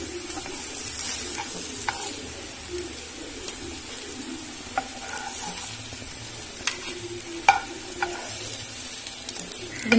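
Aloo sweet corn patties sizzling as they shallow-fry in a little oil in a frying pan, the patties fully cooked. A steel spoon clicks and scrapes against the pan a few times as they are lifted out.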